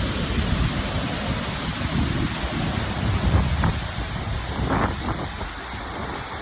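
Steady rush of water from a small waterfall, with wind buffeting the microphone.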